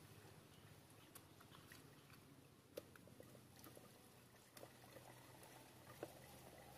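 Near silence, with a few faint wet clicks and squelches of hands working mud and water around a buried clay pot.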